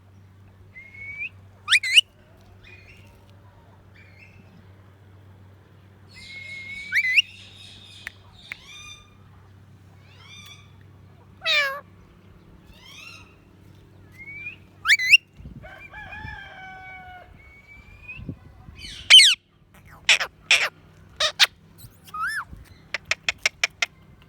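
Indian ringneck parrot giving a string of short, sharp upward-sweeping screeches and whistles with pauses between them, and a quick run of about eight clicks near the end.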